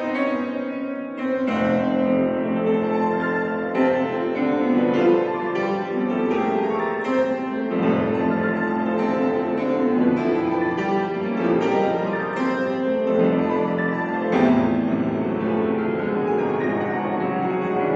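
Piano played live: a continuous flow of struck notes and held chords.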